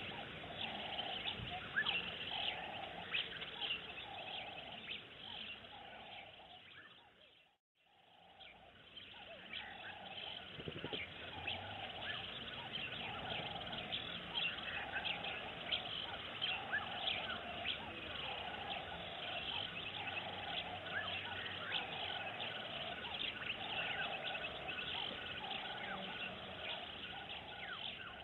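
Outdoor bird chorus: many birds chirping, with a lower note repeating about once a second. The sound fades out and back in about a quarter of the way through.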